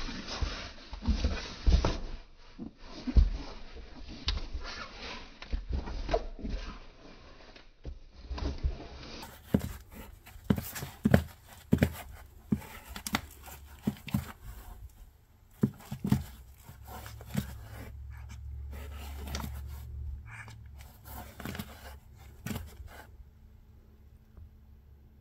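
Irregular knocks and scuffing against a plastic tub as a pixie frog (African bullfrog) thrashes while swallowing a giant centipede. The knocks come thick at first and thin out near the end.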